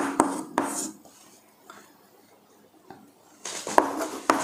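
Chalk tapping and scratching on a chalkboard as words are written, in short strokes with a pause of about two seconds in the middle.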